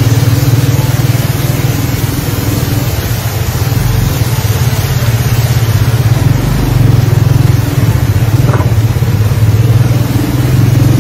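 A motor vehicle's engine running steadily as it drives through a flooded street, heard from inside the vehicle, with a constant rushing hiss of water.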